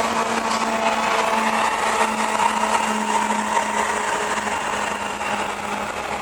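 Diesel freight locomotive running past at speed: a steady engine drone with a held whining tone, easing slightly near the end.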